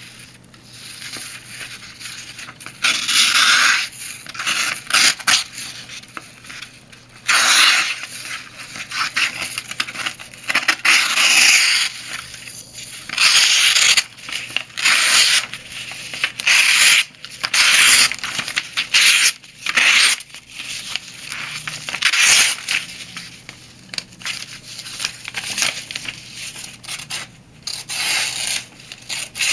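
Small Enlan Bee M07 folding knife's 8Cr13MoV blade cutting through a material in repeated rough strokes, most about a second long, with short pauses between. The blade partly cuts and partly tears the material.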